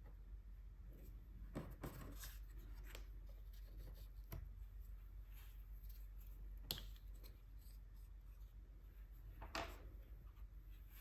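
Gouache being brushed on paper: soft, scratchy strokes and light rubbing, broken by a few small sharp clicks from handling the painting tools.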